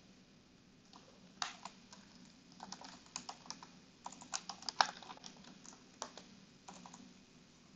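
Typing on a computer keyboard: a run of faint, irregular key clicks that starts about a second and a half in and stops near the end.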